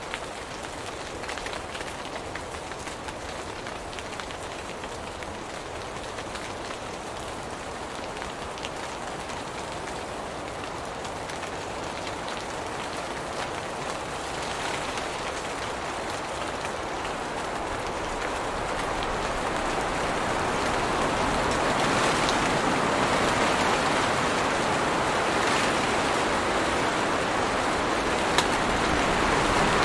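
Steady rain falling on tree leaves and foliage, an even hiss of drops that grows louder over the second half.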